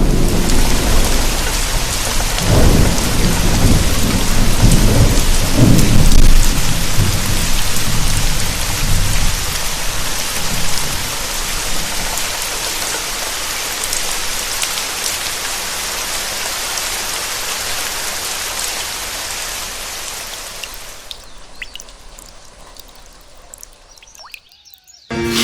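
A thunderstorm: steady heavy rain with thunder rumbling over it, the loudest roll about six seconds in. The thunder dies away after about ten seconds, and the rain fades out near the end.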